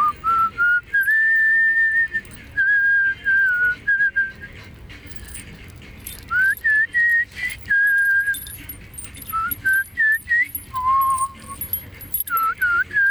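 A person whistling a slow tune on one clear tone, holding long notes with small slides between them, in phrases broken by short pauses.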